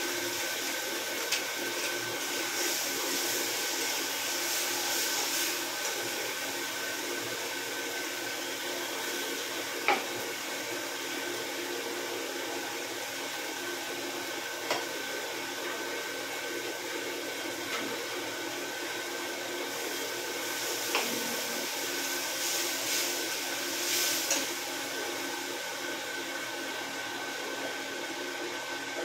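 Ground tomato, green chilli, garlic and ginger paste sizzling in hot oil in a steel kadhai on a gas stove: a steady hiss that is brighter in the first few seconds, after the paste goes in. A handful of sharp clinks of the steel stirring spoon against the pan.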